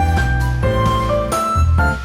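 Background music: a melody of short pitched notes over a steady bass line.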